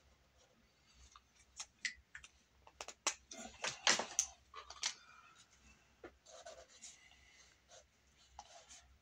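A pencil or pen drawing on paper in short scratchy strokes, busiest and loudest in the middle, then lighter strokes.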